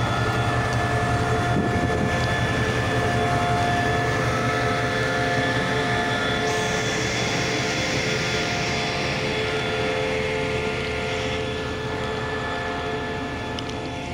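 SRT QSY diesel-electric locomotive idling while standing at the platform: a steady engine hum under a constant whine, with a hiss joining about halfway through and fading out.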